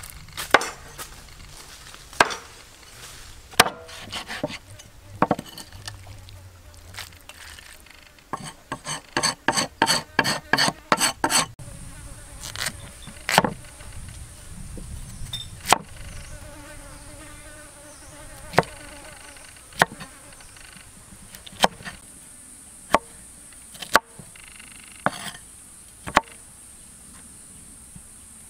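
Sharp knocks of chopping on wood, one every second or two, with a quick run of about four a second in the middle. Under them is a high, steady insect buzz that comes in a little before the middle and holds.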